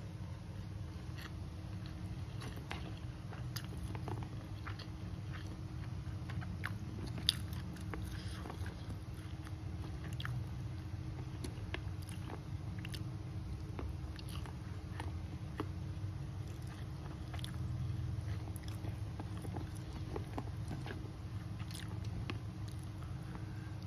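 Close-up eating sounds of rice and duck eaten by hand: chewing and biting with scattered small wet mouth clicks, the sharpest about seven seconds in, over a steady low hum.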